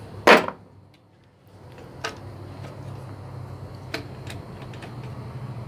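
A sharp knock, then two fainter clicks about two and four seconds in, over a steady low hum.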